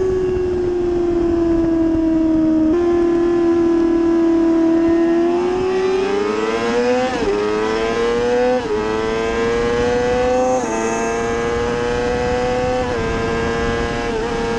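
Inline-four sport bike engine heard from the rider's seat at road speed, with wind rushing. It eases off at first, then pulls hard with two quick upshifts about seven and eight and a half seconds in, the pitch rising and dropping at each shift, then holds a steady high pitch.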